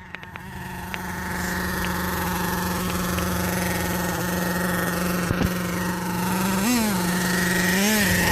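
Small gas engine of a remote-control car running at a steady idle, a single steady buzzing note, with a couple of brief rises in pitch near the end.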